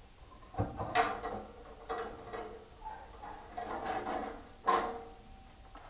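Metal knocking and scraping from hands working inside a bandsaw's lower wheel cabinet as the lower wheel assembly is taken off: several sharp knocks, each with a short metallic ring, the loudest near the end.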